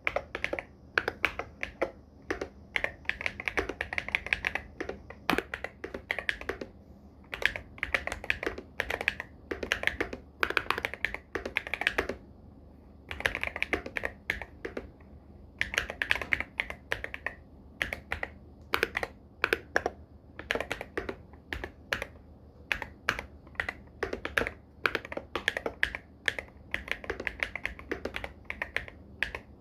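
Irok MG75 Pro mechanical keyboard with Star switches and Loga x Wongnai keycaps being typed on continuously: a fast, irregular run of keystroke clacks, broken by a couple of short pauses.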